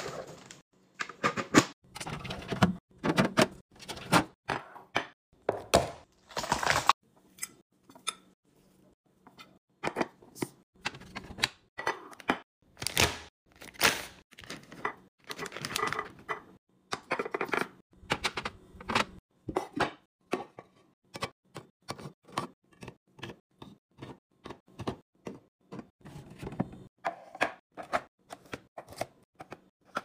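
Food packaging and clear plastic storage bins being handled: plastic bags crinkling, and many quick taps and clacks as bags, pouches and packages are set into the bins. The clicks come faster and closer together in the second half.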